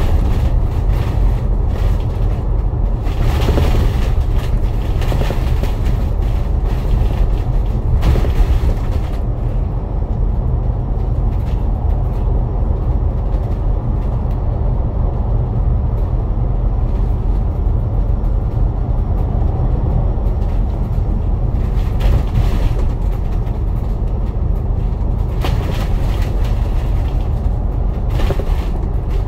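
Inside a moving KMB bus: a steady, deep engine and road rumble, with brief swells of rushing noise a few times, as from passing traffic or changes in the road surface.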